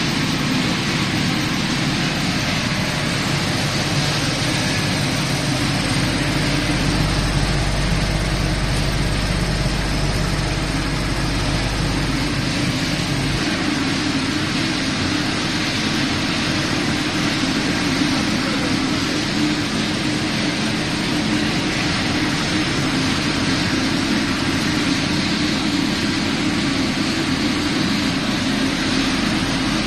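Steady running noise of a dry pet food extrusion production line: the extruder, conveyors and their electric motors running together at an even level. A low hum grows stronger for several seconds in the first half.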